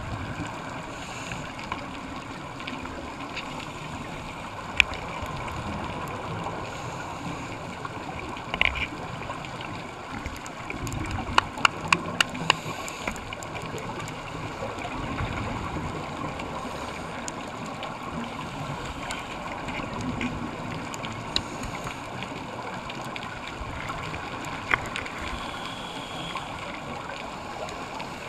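Underwater noise heard through a GoPro's waterproof housing: a steady muffled rushing with the gurgle of a diver's scuba exhaust bubbles. A few sharp clicks break through, with a quick run of about five of them midway.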